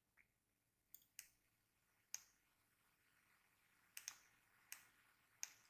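Faint computer mouse clicks, about seven of them scattered over near silence, some coming in quick pairs.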